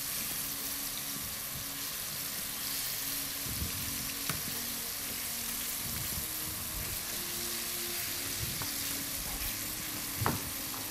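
Chicken pieces frying in hot oil in a frying pan: a steady sizzle as they are stirred with a wooden spoon, with an occasional light click.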